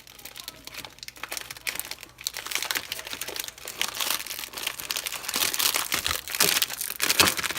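Plastic wrapper of a Twizzlers licorice pack crinkling as it is handled, a dense run of crackles that gets louder toward the end.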